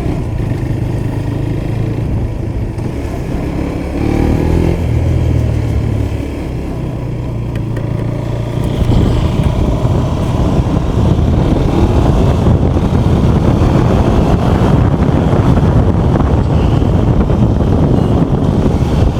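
KTM Duke 390's single-cylinder engine pulling through the gears on a test ride, with a rise in revs about four seconds in. From about halfway it grows louder and wind rushes over the microphone as speed builds. The engine, repaired after a failed timing chain, runs smoothly with no abnormal engine noise.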